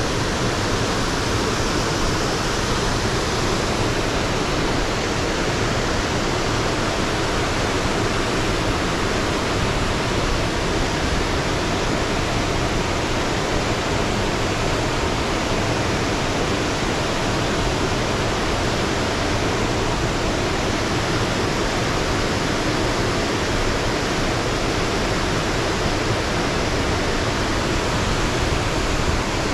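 Buttermilk Falls, a cascading waterfall, with its water rushing down in a loud, steady, unbroken wash of sound that does not change.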